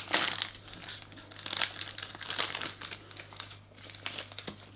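Plastic blind-bag pouch of a Lalaloopsy micro figurine crinkling and rustling as it is torn open by hand. A loud burst of crinkles comes in the first second, followed by softer, scattered rustling.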